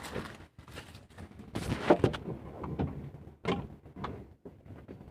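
A string of irregular knocks, clicks and clatters, like parts and tools being handled, with the loudest knock about two seconds in.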